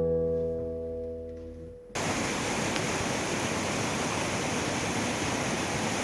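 An acoustic guitar chord rings and fades away over the first two seconds. Then a steady rushing of running water cuts in suddenly and holds at an even level.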